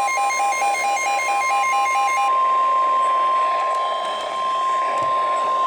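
NOAA Weather Radio 1050 Hz warning alarm tone: one steady, loud, high tone that signals a warning message is about to follow. A rapid beeping overlaps it for the first two seconds or so.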